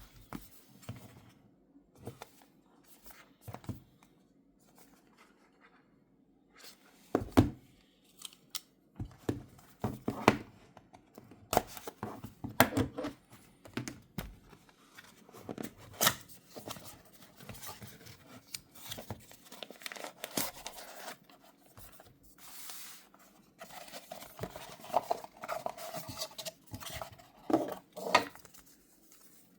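Packaging of a DJI Mic Mini being opened by hand: tearing, crinkling and rustling of wrapping, with irregular sharp clicks and knocks of the box and parts being handled.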